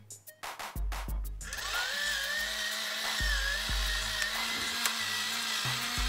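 Pepper grinder grinding pepper: a steady whirring hiss that starts about a second and a half in. Background music with a beat plays throughout.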